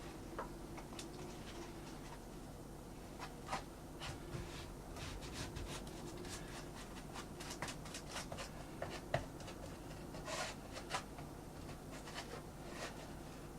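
Hand work at close range: scattered light clicks and taps over rubbing and scraping, with a steady low hum underneath.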